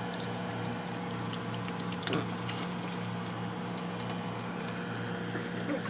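A steady low hum with a few faint clicks and taps, the clearest about two seconds in.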